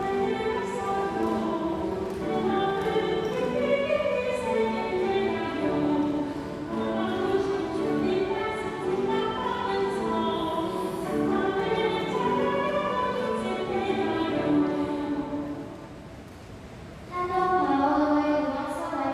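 Church choir singing a sacred song during Mass. The voices drop away briefly about sixteen seconds in, then come back in.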